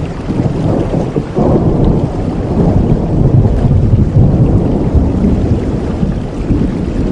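Heavy rain falling steadily, with a long, deep roll of thunder that swells about a second in and rumbles on through the rest.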